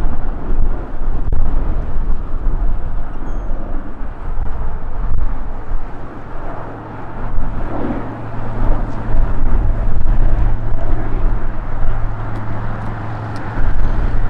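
Jet engines of a departing Boeing 787 Dreamliner running overhead as a steady roar, mixed with gusty wind buffeting the microphone. A steady low hum joins about halfway through.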